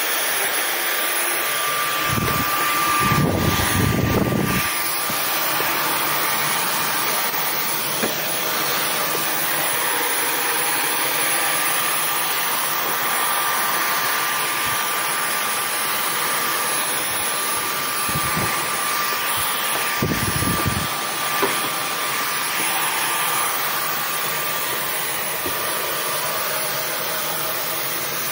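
Vacuum cleaner running steadily with a high, even motor whine, with a few short low thuds as it is moved about.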